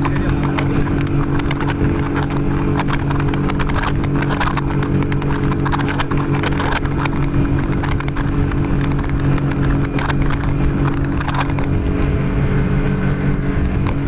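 Outboard motor of an inflatable boat running steadily at speed, a constant hum that does not change pitch, with frequent short knocks of water slapping the hull.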